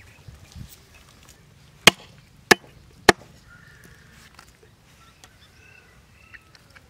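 Three chops of a heavy knife through raw chicken into a wooden tree-stump chopping block, a little over half a second apart, about two seconds in.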